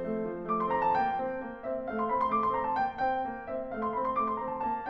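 Background piano music: single notes played one after another in a flowing melody over lower accompanying notes.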